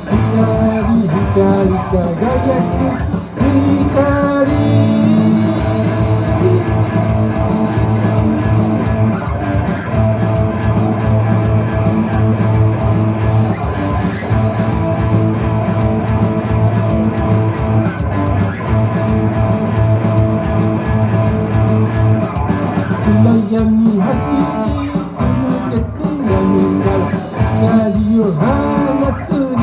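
Electric guitar playing an instrumental stretch of a rock song: held lead notes with bends, over picked chords.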